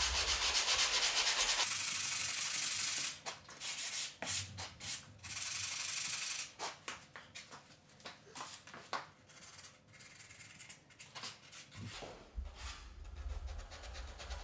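Hand sanding with a sanding sponge on primed wood window trim, rubbing off excess dried wood filler. About three seconds of fast back-and-forth strokes, then shorter separate strokes that grow fainter.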